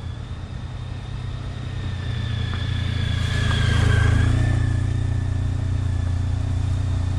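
Honda ST1300's V4 engine as the touring motorcycle rides up close, getting louder to a peak about four seconds in, then running steadily at low revs.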